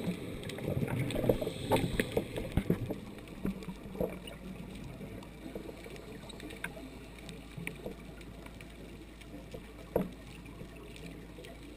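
Muffled underwater noise heard through a dive camera's waterproof housing: a churning rumble for the first few seconds, then quieter, with scattered small clicks and one sharper knock near the end.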